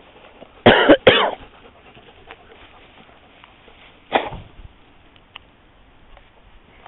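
A dog close by giving short, harsh, cough-like barks: two in quick succession about a second in, and one more about four seconds in.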